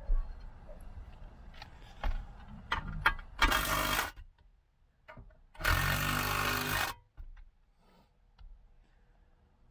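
A cordless power driver runs in two short bursts, the second about twice as long, tightening the replacement bolts that hold a steel console safe down. Light metallic clicks and knocks come before, as the tool and bolts are handled in the console box.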